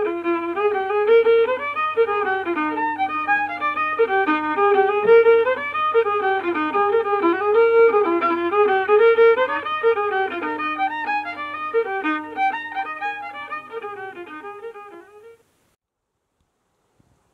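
Background music: a fiddle playing a quick tune of many short notes, fading out near the end.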